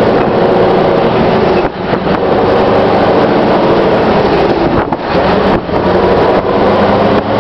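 Scania R620's V8 diesel engine running steadily as the truck drives along, heard from outside the cab with wind on the microphone.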